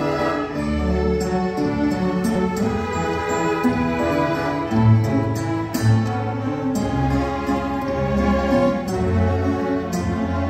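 A youth string orchestra of violins, cellos and double basses playing live: sustained chords over low bass notes.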